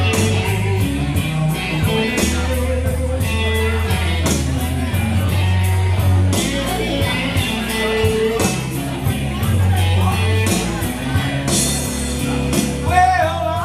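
Live blues band playing a slow blues: electric guitar and voice over sustained bass notes and drums with cymbal hits.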